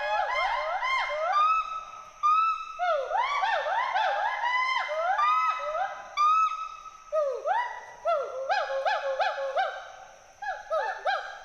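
Western hoolock gibbons calling: a series of rising-and-falling whooping notes from two overlapping voices, speeding up into short, quick notes about eight seconds in and again near the end.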